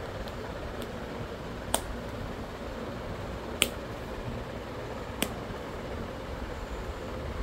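Three metal snap fasteners on a leather watch case's flap pressed shut one after another: three sharp clicks, roughly two seconds apart, over a steady background noise.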